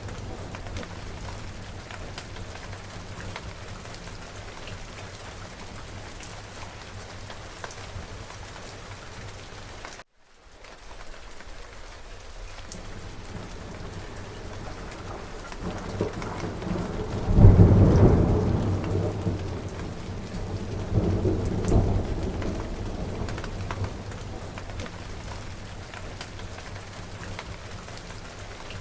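Steady heavy rain falling, with thunder rumbling: a loud deep roll of thunder about two-thirds of the way in and a second, smaller rumble a few seconds after. The sound cuts out completely for a split second about a third of the way in.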